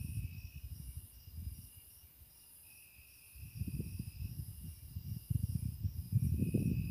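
Night insects chirping in steady high trills that stop and start in long stretches, over a low irregular rumble that grows louder in the second half.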